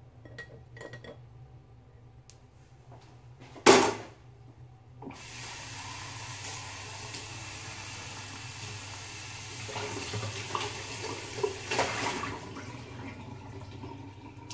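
Dishes clinking and one loud clatter, then a kitchen tap running for about seven seconds, with pots and dishes knocking in the water near the end.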